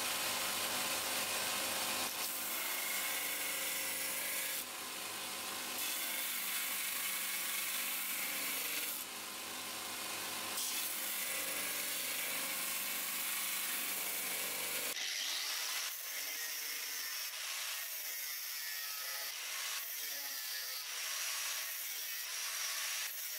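Belt grinder running with a rusty steel knife blade pressed against its abrasive belt, grinding the rust away. About fifteen seconds in it changes to an angle grinder's disc grinding the steel blade, a thinner, higher whine.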